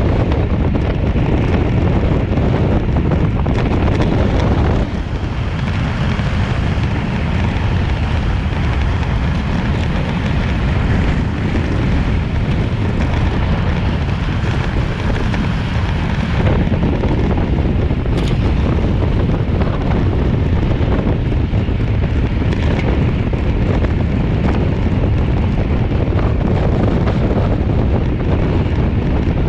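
Wind rushing over the microphone of a camera on a racing bicycle at about 30 mph, a loud, steady rumble. It eases a little from about five seconds in until about sixteen seconds.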